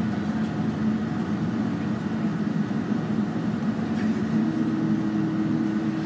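Bus cabin noise while cruising on a highway: a steady low engine drone and road noise, with a steady hum joining about four seconds in.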